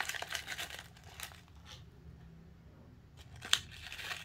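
A foil-lined plastic snack wrapper crinkling as it is handled and opened. The rustling is dense for about the first second, then thins to a few separate crackles.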